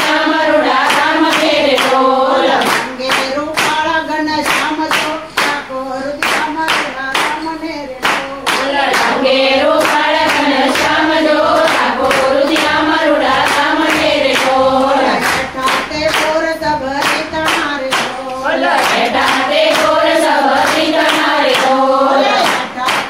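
A group of women singing a Gujarati devotional bhajan together, keeping time with a steady beat of handclaps.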